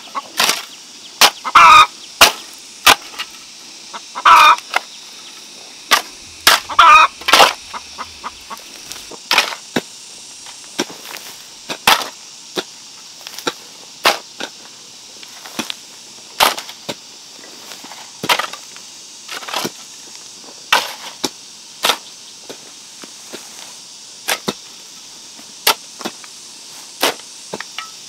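Chickens clucking and calling several times in the first few seconds, over a run of sharp knocks that repeat irregularly, about one or two a second, from start to finish.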